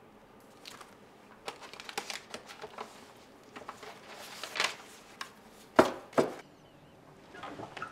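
Sheets of paper and document folders being handled on a desk: irregular rustling and light taps, with two sharper taps close together about six seconds in.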